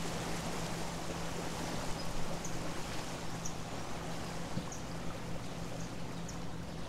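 Boat motor running with a steady low drone under a soft rushing haze of water and breeze. Short high bird chirps come about once a second from a couple of seconds in.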